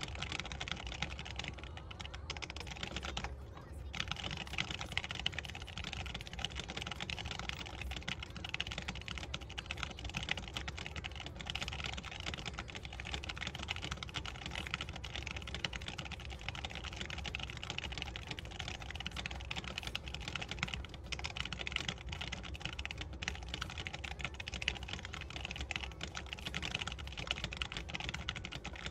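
Das Keyboard X50Q mechanical keyboard with Gamma Zulu switches being touch-typed very fast, around 177 words a minute, giving a dense, unbroken clatter of keystrokes. There is a brief let-up a little over three seconds in.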